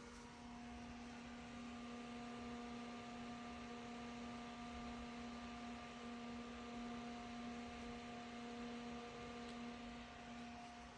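Noctua NF-F12 iPPC-2000 120 mm PC fan running: an even airy hiss with a steady hum of a few tones. It is a little louder from about a second in until near the end.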